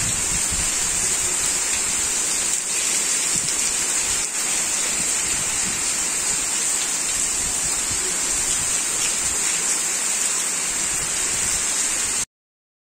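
Heavy tropical downpour, a steady hiss of rain falling on ground, trees and standing water. It cuts off suddenly near the end.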